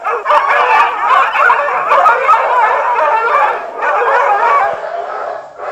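Several dogs howling and yipping together in a dense, overlapping chorus of wavering cries, with a brief break a little before four seconds in.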